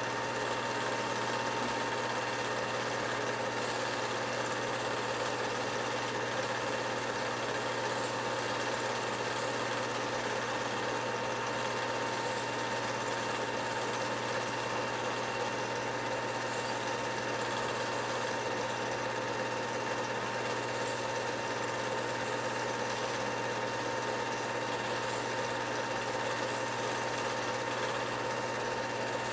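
8mm film projector running, a steady mechanical whir with a constant hum that does not change.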